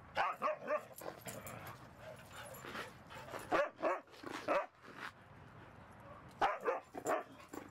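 Siberian huskies playing, giving short barks and yips in three quick clusters: near the start, around the middle, and near the end.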